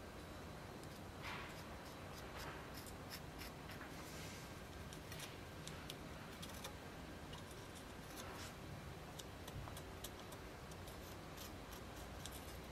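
Faint handling sounds: scattered small clicks and a few soft scrapes as hands and a marker pen move on a forged steel knife blade, over a low steady hum.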